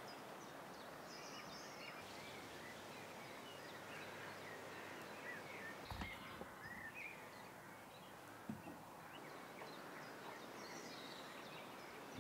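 Faint outdoor ambience with scattered birdsong chirping throughout. There is a soft low thump about halfway through and a brief tap a couple of seconds later.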